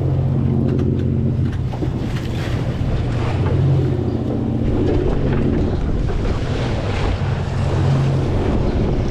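Sportfishing boat's engine running steadily, a low drone under wind buffeting the microphone and the wash of the sea along the hull.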